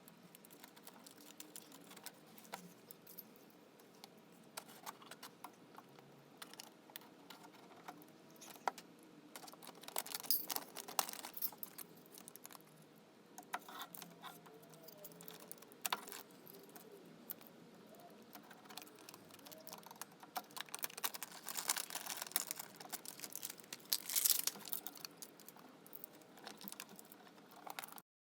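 Irregular small clicks, taps and rustling of hands working with parts and tools, in clusters with quieter gaps, ending abruptly near the end.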